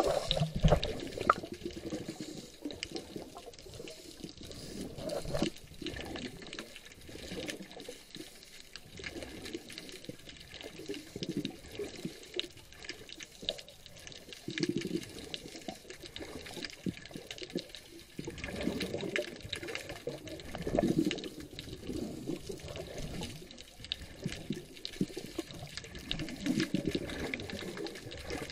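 Underwater sound picked up by a camera in a waterproof housing: muffled rushes of exhaled bubbles from scuba regulators every few seconds, over a steady crackle of small clicks.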